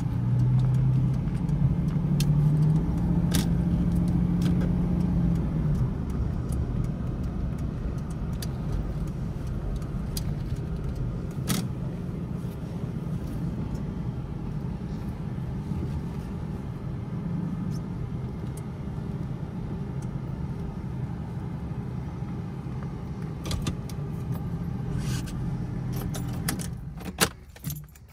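Jaguar XJS engine and road noise heard from inside the cabin while driving. For the first five seconds or so the engine tone climbs in steps as the car pulls away, then it settles into steady cruising. Small clicks and jangles recur throughout, and near the end the running sound drops away abruptly with a few sharp clicks.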